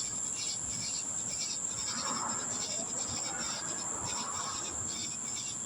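Night insects, crickets among them, calling: a steady high-pitched trill under a regular, evenly repeating chirp.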